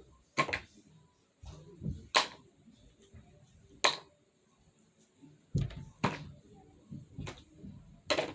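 Scattered sharp clicks and knocks, about five spread out over several seconds, with a few softer thumps between them: the sounds of eating and of handling dishes and utensils at a seafood meal.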